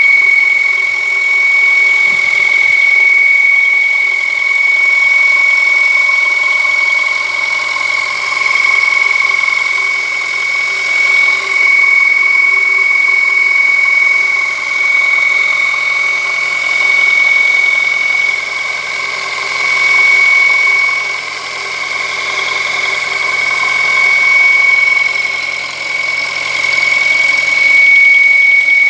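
Škoda Fabia engine idling with a steady high-pitched whistle under the bonnet. The uploader traces the whistle to a torn membrane in the crankcase ventilation (PCV) valve, a common fault on VAG engines, rather than to bearings or belts.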